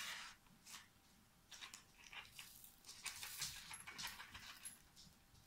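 A pet dog, faint: short breathy sounds with soft clicks and rustles scattered through.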